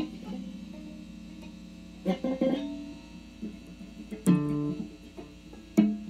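Electric guitar notes played to imitate a tolling bell: a quick cluster of plucked notes about two seconds in, then single ringing notes a little after four seconds and near the end.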